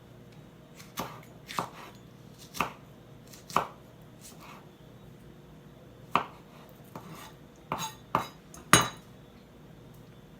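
Knife chopping on a cutting board in slow, uneven strokes: about ten separate sharp knocks, the loudest one near the end.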